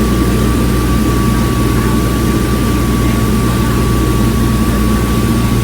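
Airplane engine droning steadily during a landing approach, with a thin steady high whine over the low hum.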